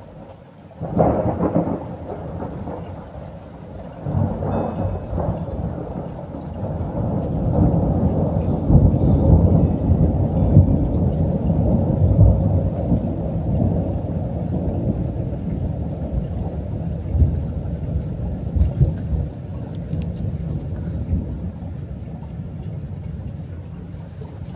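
Thunder: a sharp crack about a second in and another clap around four seconds, then a long rolling rumble that builds to its loudest midway and slowly fades.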